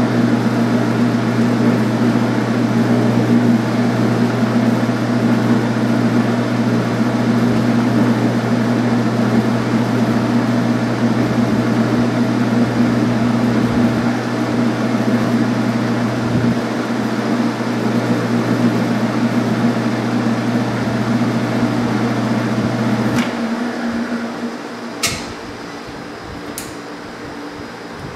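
Metal lathe running with its four-jaw chuck spinning: a steady motor hum that stops about 23 seconds in as the lathe is switched off and runs down. Two sharp clicks follow near the end.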